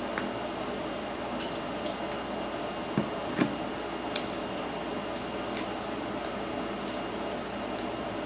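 Close-miked eating of crab: wet chewing and smacking with scattered small clicks of shell and utensils, over steady background noise. Two louder smacks come about three seconds in, followed by a few sharp clicks.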